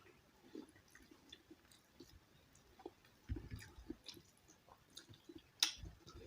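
A person chewing a mouthful of soft rice and mashed bhorta: faint wet smacks and small clicks, with a few dull low thumps and one sharp click a little before the end.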